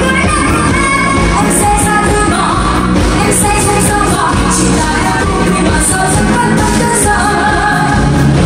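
Live pop band with electric guitar, bass and drums playing loudly, with a woman singing.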